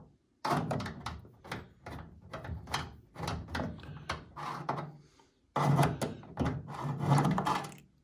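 Magnetic stubby screwdriver turning screws out of a microwave's sheet-metal blower housing: a series of short scraping strokes, about two a second, then a louder stretch after a brief pause about five seconds in.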